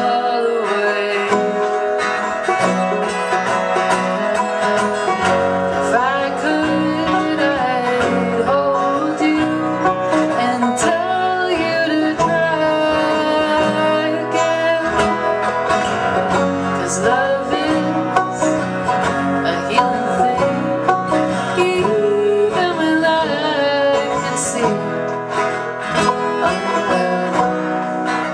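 Acoustic folk trio playing a song live: plucked string instruments picking a steady, dense accompaniment, with singing voices over it.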